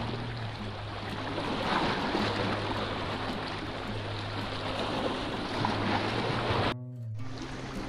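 Sea surf washing against a rocky shoreline, a steady rushing, with low held notes of background music underneath. The sound cuts out briefly for a moment near the end.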